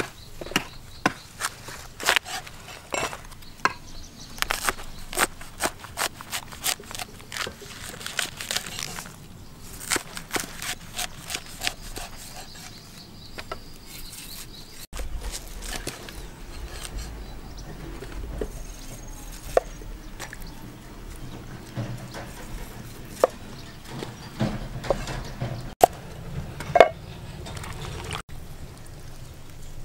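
Cleaver chopping banana blossom on a wooden chopping block: a quick run of sharp knocks on the wood, thinning out after about halfway to separate knocks every second or two.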